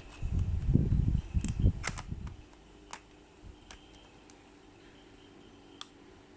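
Handling noise: low rubbing and thudding for about two seconds, then a few scattered sharp clicks, as objects are moved about by hand.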